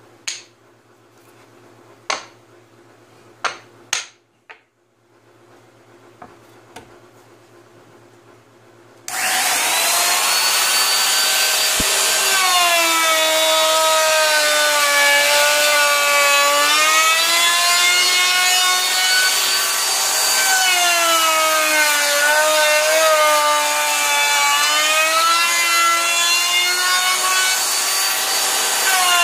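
A few sharp wooden knocks as cut-out plywood discs are handled, then about nine seconds in a handheld router starts abruptly and runs with a loud whine, cutting a roundover on the edges of holes in a plywood shelf brace. Its pitch sags and recovers as the bit bites into the wood.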